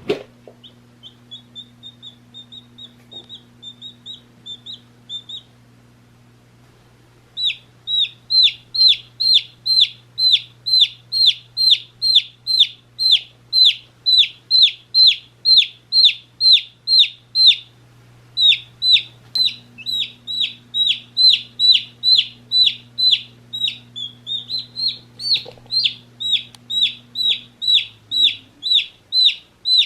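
A one-day-old baby chick peeping: faint, quick chirps for the first few seconds, then after a short pause loud, regular peeps that each fall in pitch, about three a second.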